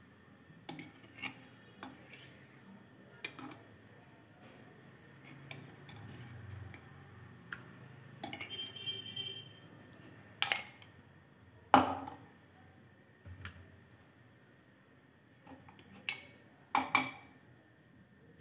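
A spoon tapping and scraping against a stainless steel bowl while ginger-garlic paste is added to raw chicken: scattered sharp clinks, the loudest about ten and twelve seconds in and a quick pair near the end.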